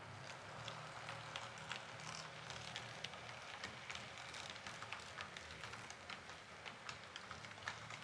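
H0-scale model SU46 diesel locomotive and passenger coach running along the track: a low steady motor hum with irregular sharp clicks from the wheels over rail joints and points.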